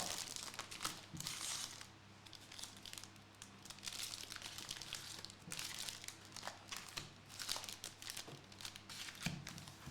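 Crinkling and tearing of foil trading-card pack wrappers being opened and handled, in irregular bursts.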